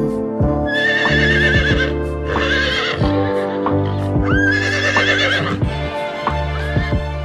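A horse whinnying several times, each call a long, quavering neigh, over steady background music.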